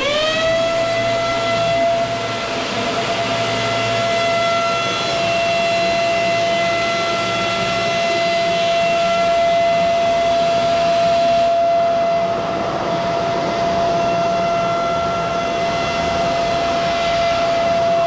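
Kent Storm vacuum cleaner switched on: its motor spins up in a quick rising whine and then runs steadily with a high whine and the rush of air through the floor brush.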